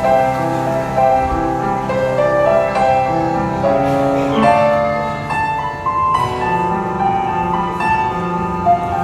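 Instrumental music: a melody of held notes over sustained lower chords and a bass line.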